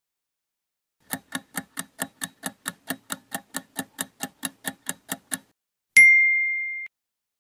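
Quiz countdown-timer sound effect: steady clock-like ticking, about four to five ticks a second for roughly four seconds, then a single louder bell ding that rings for just under a second and cuts off as the time runs out.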